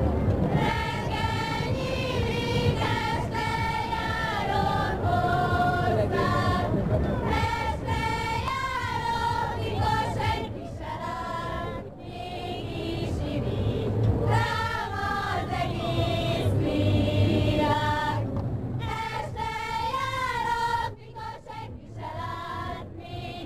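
A group of female voices singing a Hungarian folk song together, the dance song for a fast csárdás.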